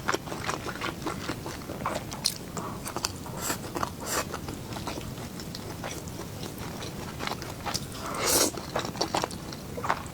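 Close-miked chewing and crunching of food, with many small wet mouth clicks and crackles. There is a louder burst of crunching about eight seconds in.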